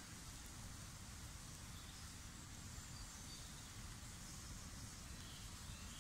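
Small campfire of sticks burning: a faint, steady low noise with a few soft, short high sounds over it.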